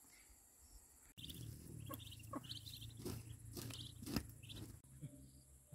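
Ducklings peeping in a woven bamboo basket: many short, high peeps overlapping, with rustling and light knocks as they shuffle against the basket. This starts suddenly about a second in, after faint insect chirping.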